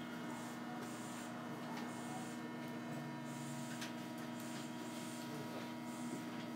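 Steady electrical hum with several constant tones and a faint hiss, from a Tokyo Monorail train standing at a platform with its doors open.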